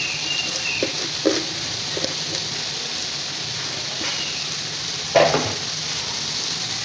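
Steady sizzling of vegetables frying in oil in a metal wok as shredded cabbage and green onion are tipped in from a plastic bowl. A few short knocks sound over the sizzle, the loudest about five seconds in.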